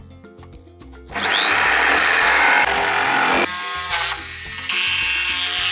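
Electric jigsaw cutting through Euro-pallet wood, starting about a second in with a loud sawing noise that eases about three and a half seconds in to a quieter cut with a motor whine. Background music with a steady beat plays underneath.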